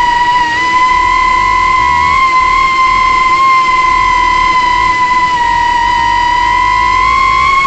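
Motors and propellers of a 3-inch FPV quadcopter in flight, a steady high-pitched whine whose pitch wavers slightly with throttle.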